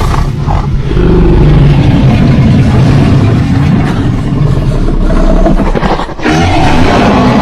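Giganotosaurus vocal sound effect: a loud, low, continuous rumbling growl, with a brief dip about six seconds in.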